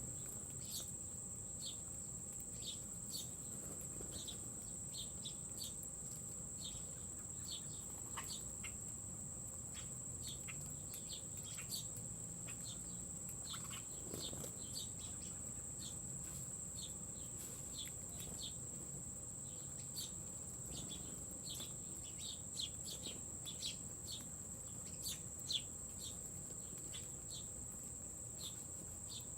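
A steady high-pitched insect drone, like crickets, runs under many short, quick bird chirps that come thicker near the end.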